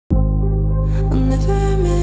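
Background music starting abruptly at the very beginning, with steady held notes over a strong bass.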